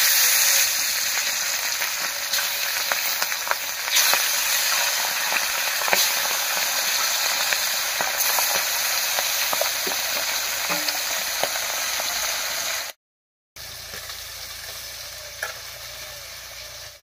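Pabda fish frying in hot mustard oil in a karahi: a steady, loud sizzle with scattered sharper crackles. After a short break about thirteen seconds in, the sizzle is quieter.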